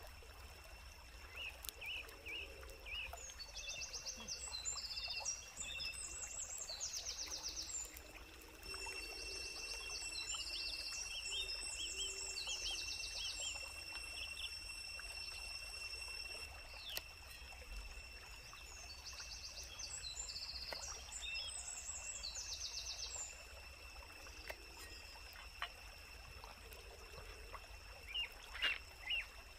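Outdoor ambience of water burbling under high, fast trilling animal calls that come in repeated bursts, with a steady high-pitched drone throughout.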